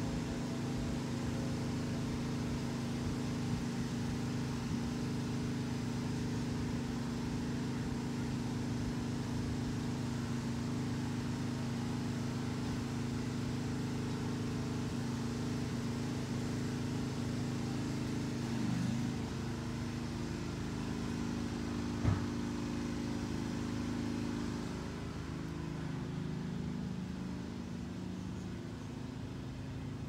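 Lawn mower engine running steadily. Its note shifts about two-thirds of the way through and it grows a little quieter near the end, with one sharp knock partway through.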